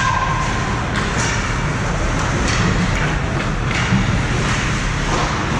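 Ice hockey play in an arena: a steady low rumble of the rink with scattered sharp scrapes and clacks of skates, sticks and puck on the ice.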